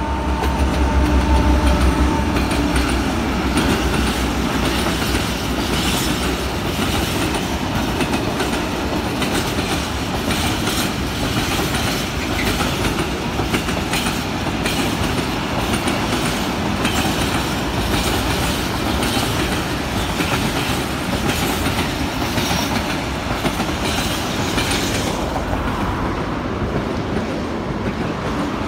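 M60 (ST44) diesel locomotive, a two-stroke V12, passing close below, its low engine note loudest in the first two seconds or so. A long train of tank wagons then rolls past with a steady rumble and clickety-clack of wheels over rail joints.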